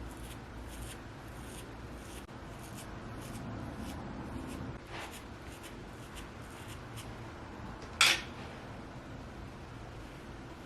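Quiet handling noises: faint rubbing and small ticks, with a soft click about five seconds in and a sharp click about eight seconds in.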